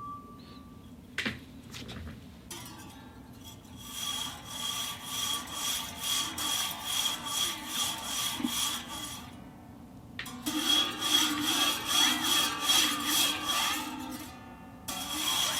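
Rhythmic rubbing or scraping strokes, about two a second, on an object that rings with steady high tones under them. The strokes come in two long runs with a pause of about a second between them and start again near the end. A single sharp knock sounds just over a second in.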